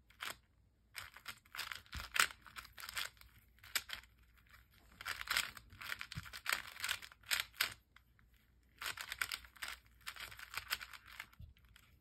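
Stickerless plastic 4x4 puzzle cube having its layers turned by hand, in runs of quick clacking turns with short pauses between, while the cube is solved the normal way after its parity fixes.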